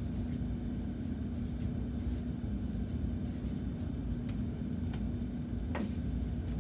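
Steady low room hum, over which a felt-tip marker makes faint scratchy strokes writing on a craft piece, with a sharper click near the end.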